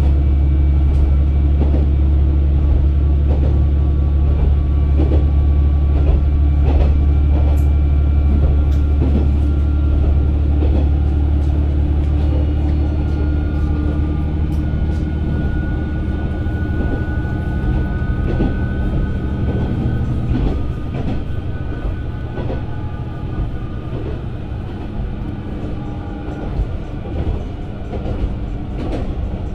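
KiHa 120 diesel railcar heard from inside the cabin while running: a steady low engine drone with scattered clicks from the wheels over the rails. The drone grows quieter about two-thirds of the way through.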